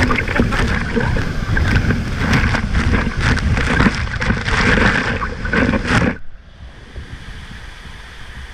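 Wind buffeting the microphone over a running motor during a ride, with many sharp crackles. It cuts off suddenly about six seconds in to a quieter, steady outdoor hiss.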